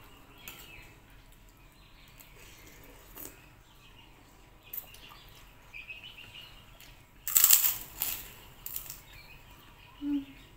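Close-miked eating noises from a mouthful of chicken soto with a krupuk cracker: quiet chewing, then a loud noisy burst of mouth sound a little past seven seconds in, with two shorter ones right after. A short low hum comes near the end.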